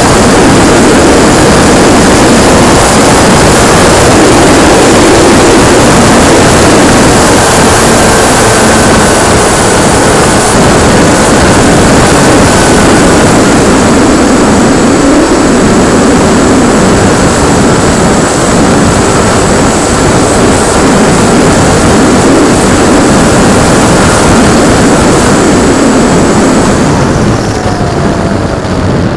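Loud, steady rush of wind and propeller noise from a camera riding on a radio-controlled P-51D Mustang model aircraft in flight. The noise eases and loses its hiss in the last two seconds.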